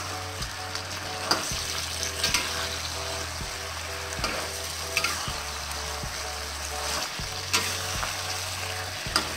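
Shrimp in a thick sauce sizzling in a stainless steel wok over a high flame as the sauce reduces into them, with a spatula scraping and knocking against the pan as it is stirred, about once a second.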